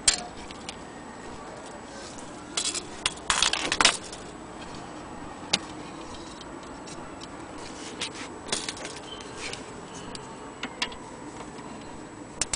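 Scattered, irregular clicks and knocks of an antique Gustav Becker mantel clock being handled, with its brass-rimmed glass dial door and a metal winding key clicking against the case. A louder cluster of rattling clicks comes about three to four seconds in.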